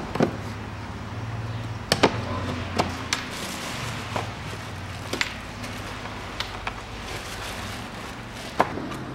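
Sharp plastic clicks and knocks, about ten spread unevenly over several seconds, as the lid of a Nissan Qashqai's air filter housing is pressed into place and fastened.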